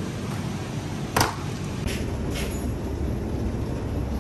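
Steady low background rumble, with a single sharp knock about a second in and two faint ticks soon after.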